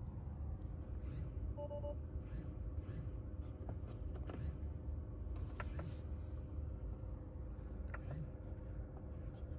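Tesla cabin climate fan running at maximum: a steady blowing rumble with a faint hum, and a few light clicks scattered through it.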